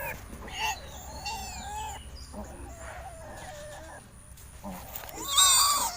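Piglets squealing: several faint pitched calls, then a loud, harsh squeal near the end.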